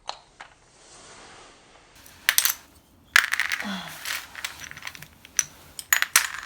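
Small hard plastic toy pieces clattering and clicking against each other and the floor, in clusters of sharp clicks: a little past two seconds in, around three seconds, and again near the end.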